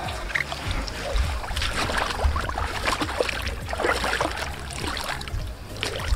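Water sloshing and splashing in irregular bursts as a carp is carried into the lake shallows for release, over a low rumble on the microphone.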